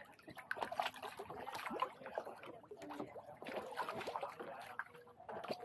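Water splashing and sloshing around a small boat, with scattered light knocks.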